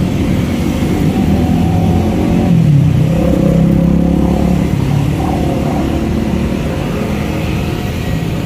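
Road traffic: intercity buses' diesel engines running as they pull out, with motorcycles riding past. A steady engine drone that swells about three seconds in.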